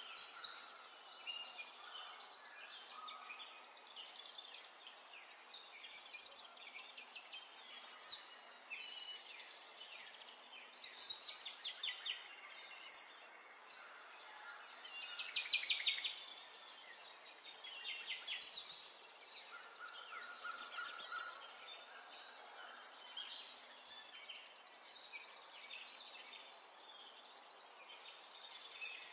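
Songbirds chirping and trilling in short high phrases, some falling in pitch, repeating every second or two over a faint steady hiss.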